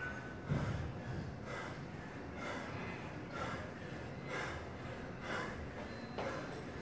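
A man breathing hard and fast after a brutal conditioning interval, about one heavy breath a second. A low thud comes about half a second in.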